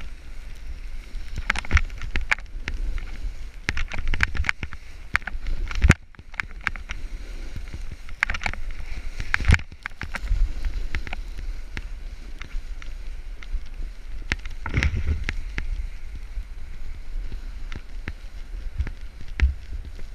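Wind buffeting the camera's microphone during a fast descent on snow, with the hiss of edges sliding over snow. Irregular sharp knocks and clicks sound throughout; the loudest come about six and nine and a half seconds in.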